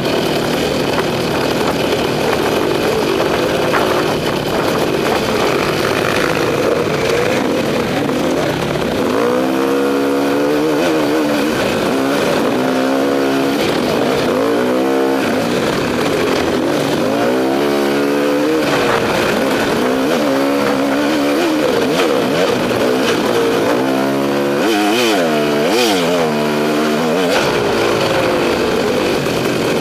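KTM two-stroke enduro dirt bike being ridden on a trail, its engine rising and falling in pitch again and again as the throttle is opened and closed over the terrain.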